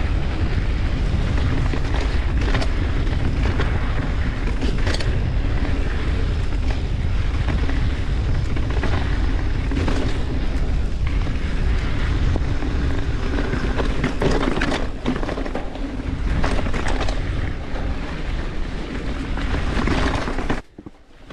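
Mountain bike riding fast down a rocky dirt trail: wind rushing over the microphone, tyre noise, and scattered knocks and rattles as the bike rolls over rocks. It cuts off abruptly near the end.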